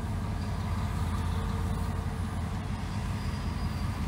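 Freight train shoving a cut of boxcars slowly past, pushed by an EMD MP15DC switch engine: a steady low rumble of the diesel and rolling cars.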